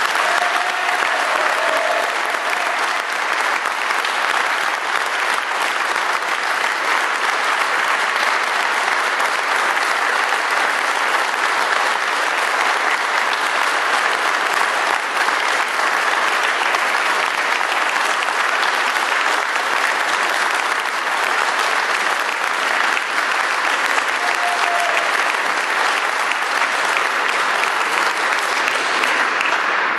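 Sustained applause from a crowd in a hall: many people clapping steadily, without a break, for about half a minute.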